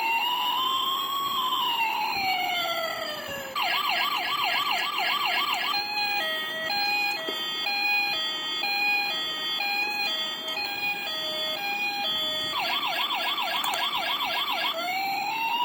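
Toy RC police car's electronic siren cycling through its tones: a slow rising-and-falling wail, then a fast warble, then a steady two-tone hi-lo alternation for several seconds, the fast warble again, and the wail starting over near the end.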